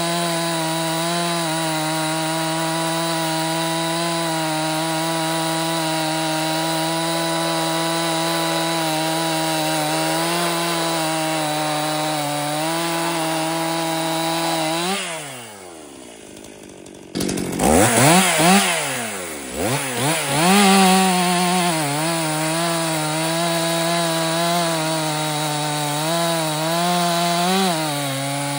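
Stihl MS261C two-stroke chainsaw with a 3/8-pitch chain cutting through a thick log at full throttle, its engine note steady under load. About halfway through, as the cut finishes, the engine drops back toward idle. After a short break it revs up and down a few times, then settles into a new cut under load.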